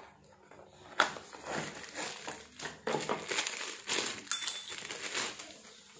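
Cardboard bearing box being opened, then the clear plastic bag around a pillow-block bearing crinkling as it is unwrapped by hand: irregular rustling and crackling, loudest in the second half.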